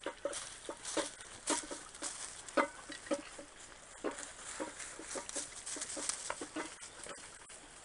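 Footsteps crunching and rustling through dry leaf litter, with irregular crackles a few times a second.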